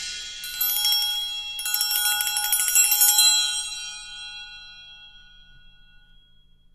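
A small metal bell rung in two rapid trills, about half a second and a second and a half in, then ringing on and fading away.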